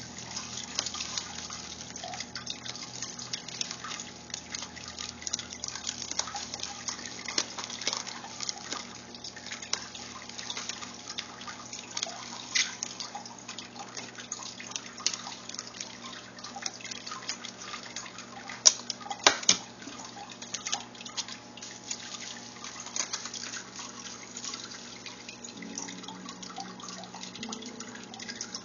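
Bubble wrap and plastic bendy straws crinkling and clicking as they are handled, with a few louder sharp crackles about two-thirds of the way through.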